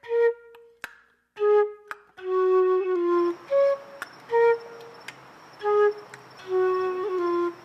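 Instrumental background music: a melody of short and held pitched notes, some of the longer notes sliding slightly, with a few sharp clicks scattered through it.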